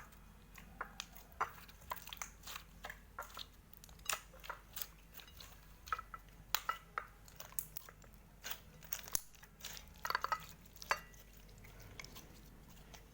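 Slime being squeezed and kneaded by hand, making irregular sharp little clicks and pops, several a second.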